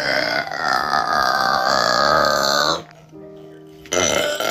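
A girl burping loudly: one long, drawn-out burp of about three seconds, then a second burp starting near the end.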